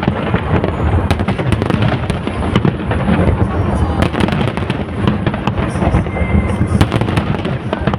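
Aerial fireworks display: a dense, unbroken barrage of shell bursts, many sharp cracks and crackles over a continuous deep rumble of booms.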